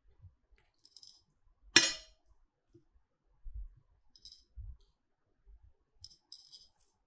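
Stainless steel kitchen tongs clinking and clicking while serving boiled enoki mushrooms onto a ceramic plate. One sharp clink with a short ring, about two seconds in, is the loudest. Lighter metallic clicks and a few soft low knocks come after it.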